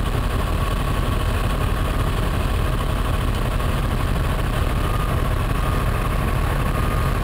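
An engine idling with a steady low rumble, heard from inside a vehicle cab, with a thin steady whine running over it.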